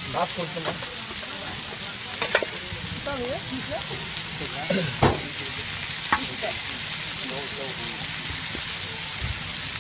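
Masala-coated whole fish frying in oil on a large flat griddle: a steady sizzling hiss, with a few sharp metal taps as the cook works oil over them with a spoon and brush.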